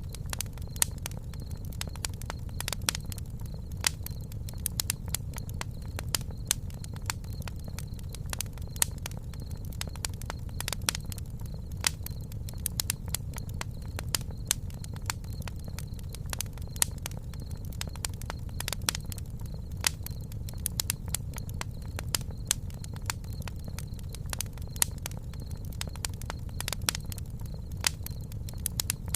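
Campfire burning, with frequent irregular sharp crackles and pops over a steady low rumble.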